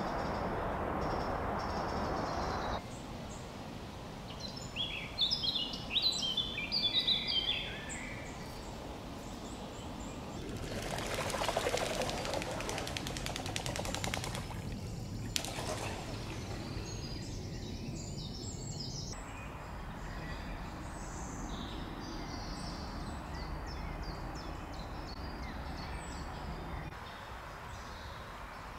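Woodland ambience over a steady background hush, cut together from several takes: a songbird sings a burst of chirping notes about five seconds in, a rushing noise swells and fades near the middle, and fainter bird calls follow.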